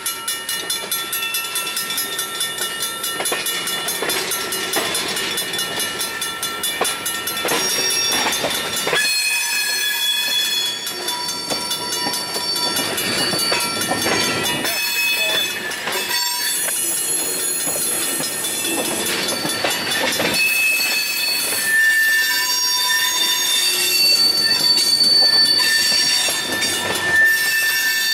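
Freight cars (tank cars, then a covered hopper) rolling past, their steel wheels squealing against the rail in several high, steady tones that come and go and change pitch, over the rumble of the moving train.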